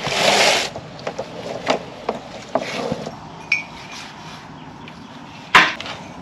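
Working noise from hands handling metal fittings and cable in a dirt trench: a short scraping burst at the start, then scattered clinks and knocks, with one sharp loud knock near the end.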